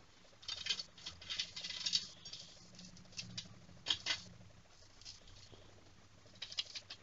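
Crisp puffed-rice-and-jaggery laddu pieces crackling and crunching as hands handle them on a plate. The crackles come in three bursts: a long one in the first two seconds, a short one near the middle and another near the end.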